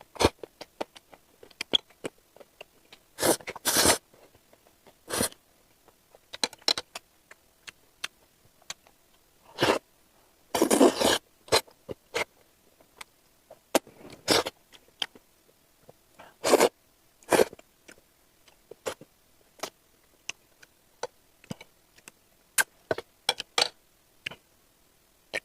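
Close-miked eating sounds: irregular chewing and mouth clicks, with a handful of louder bursts, the longest about a second.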